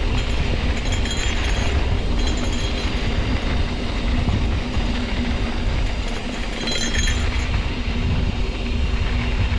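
Trek Roscoe 8 hardtail mountain bike riding over a rough dirt trail: a steady rumble and rattle of tyres and frame, with wind buffeting the helmet-camera microphone. A few brief high buzzes break in about a second in, at two seconds and around seven seconds.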